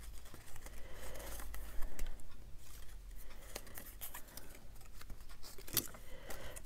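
Paper and craft pieces being handled: soft rustling with scattered light clicks and taps, the sharpest about two seconds in and again near six seconds.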